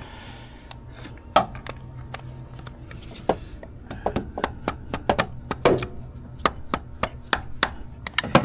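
Light hammer taps on a camshaft position sensor, driving it into its bore in the engine: a string of sharp, irregular knocks, a few at first and coming quicker from about four seconds in.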